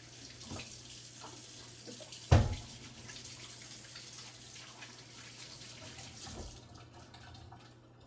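Tap running into a sink for about six seconds, with one loud knock about two seconds in.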